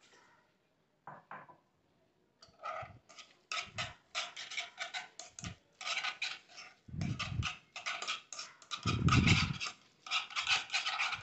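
Chopsticks stirring and tossing sauced instant noodles in a nonstick pan: quick, busy clicking and scraping against the pan, with two dull thumps about seven and nine seconds in.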